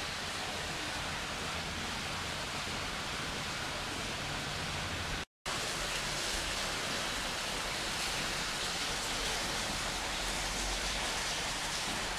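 Steady rushing, splashing water noise from an aquarium's filter or aeration, with a faint low hum beneath it. It cuts out completely for a split second about five seconds in, then resumes unchanged.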